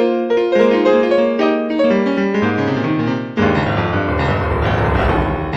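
Piano music, a run of single notes. About three and a half seconds in, a fuller, lower accompaniment joins.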